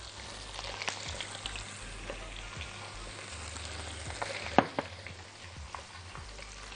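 A whole seasoned chicken frying in hot butter and olive oil in a pan: a steady sizzle with scattered crackles and one sharper pop a little past halfway.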